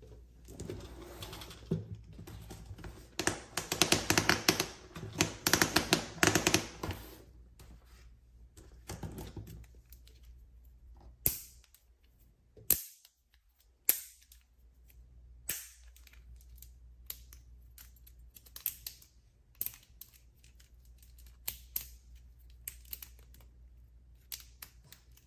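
Sharp clicks and taps like typing: a dense, quick run of them a few seconds in, then single clicks spaced a second or two apart.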